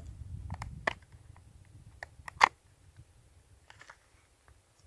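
Fingers prying and working at a tight-fitting small black knife tin, giving scattered clicks and scrapes. There is a low rumble in the first second, and the sharpest click comes about two and a half seconds in.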